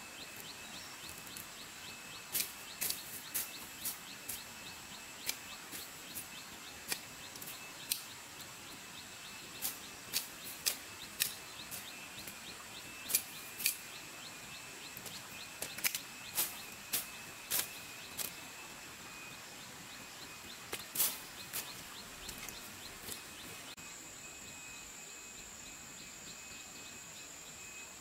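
A hoe chopping into wet soil and weeds: a run of sharp, uneven strikes, sometimes two or three in quick succession, that stop a few seconds before the end.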